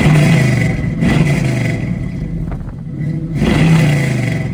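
LS1 V8 engine of a 1969 Camaro being revved, about three throttle blips with the pitch falling back after each.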